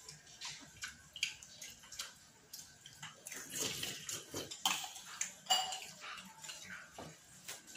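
A metal spoon clinking and scraping in a metal bowl of soup, with slurping sips of the liquid, in short irregular bursts.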